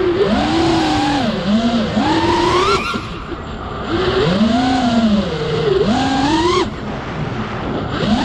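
FPV freestyle quadcopter's brushless motors and propellers whining, the pitch rising and falling in several swells as the throttle is punched and eased through dives and turns, over a steady rush of air.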